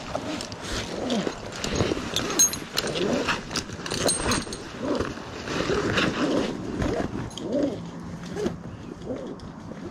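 Tree-climbing rope and hardware in use: repeated sharp clicks and rattles from the carabiners and gear, with a string of short pitched squeaks or grunts that rise and fall about once or twice a second.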